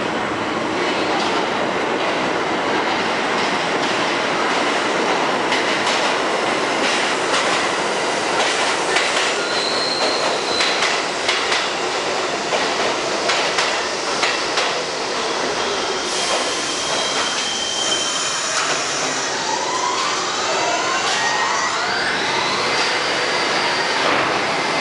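R68 subway train running into an underground station and slowing to a stop: a steady rumble of the passing cars with repeated clacking over rail joints and brief high wheel squeals. Several whines rise in pitch in the last few seconds as the train halts.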